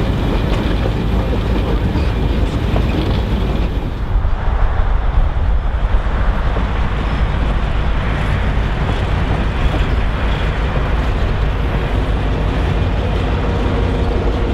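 A train rolling along: the unpowered SP 9010 diesel-hydraulic locomotive being pushed by an EMD SD9 diesel-electric, with steady wheel-and-rail rumble. About four seconds in, the sound changes from riding aboard the 9010 to the pair passing close by, the SD9's diesel engine running as it goes by.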